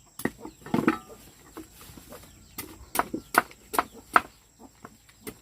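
A series of sharp, irregular knocks, coming about two to three a second in the second half, with a short pitched call or voice about a second in.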